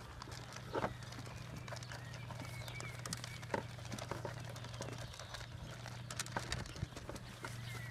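Cameroon sheep feeding together from a plastic bowl: irregular knocks and clicks as their muzzles and horns bump the bowl and stir the feed, two sharper knocks about a second and three and a half seconds in, over a steady low hum.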